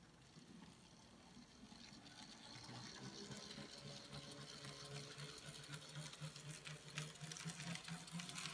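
N scale Atlas B40-8 diesel locomotive mechanism, running on track with its plastic shell on: a small motor and gear whir with a pulsing hum and scattered clicks. It grows steadily louder.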